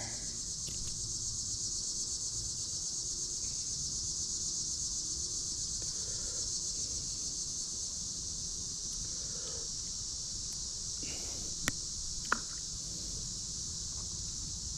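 Steady, high-pitched chorus of insects such as crickets, with two short sharp clicks about two-thirds of the way through.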